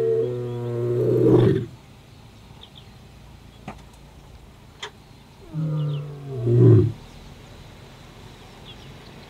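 Male white lion roaring to answer rival males: a long, low moaning call that ends about a second and a half in with a louder, harsher burst, then a second, shorter call that starts about five and a half seconds in and swells to a loud peak near seven seconds.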